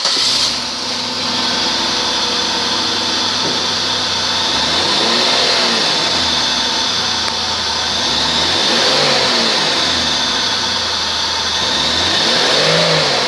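Buick 3800 Series III V6 engine running steadily just after start-up. It is revved up and back down briefly three times, from about five seconds in, each rev a few seconds apart.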